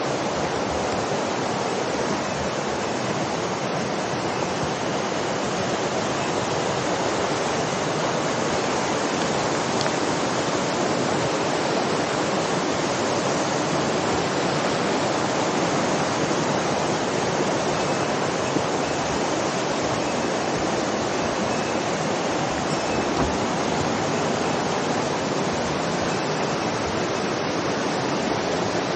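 Mountain river water rushing steadily over rocks, a loud unbroken rush.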